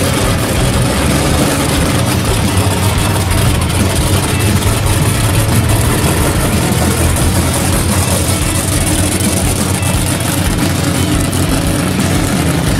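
1968 Chevrolet Camaro drag car's engine idling as the car moves at low speed, a steady low exhaust note with an uneven beat.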